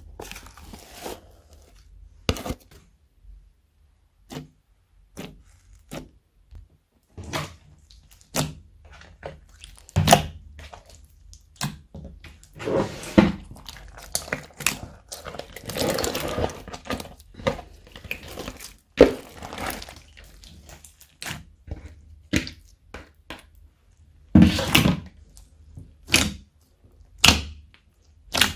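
Slime being squished and pressed by hand, making irregular pops, clicks and crackles, busiest in the middle and again near the end.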